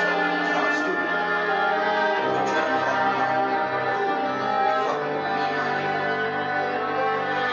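Hip-hop instrumental beat playing: sustained chords that change about two and five seconds in.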